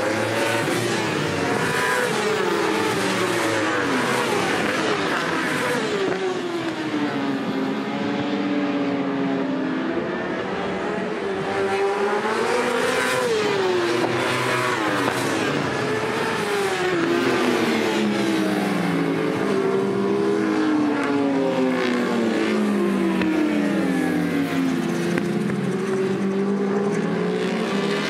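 Several endurance-racing superbikes at full race pace, their engines rising and falling in pitch as they accelerate, shift and brake, with more than one bike heard at once.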